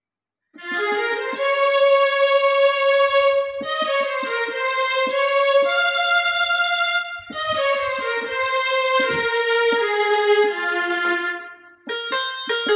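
Electronic arranger keyboard playing a slow melody in a sustained, string-like voice, with long held notes that slide from one pitch to the next. Near the end it changes to sharper, plucked notes.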